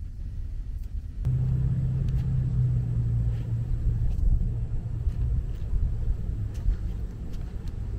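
Low, steady rumble of wind on the microphone, starting abruptly about a second in.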